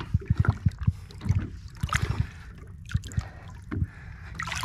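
Water sloshing and lapping at the side of a boat as a large red drum is held in it for release, with a series of short low thumps.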